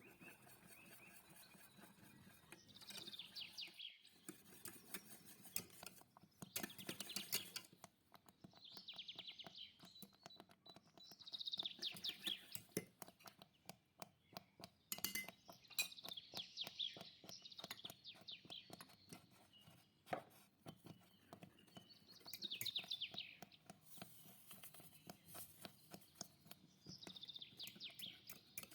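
Faint, fast clicking of a kitchen utensil against a dish, coming in bursts of a second or two, over and over.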